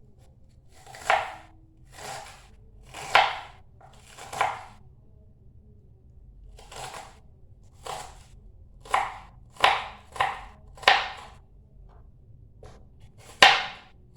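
Knife slicing an onion thinly, about a dozen separate cuts roughly a second apart, with a short pause partway through and the loudest cut near the end.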